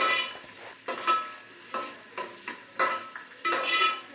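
Metal spoon stirring onions, capsicum and chillies frying in oil in an aluminium pot: a ringing scrape and clink against the pot about every half second, irregular, over a light sizzle.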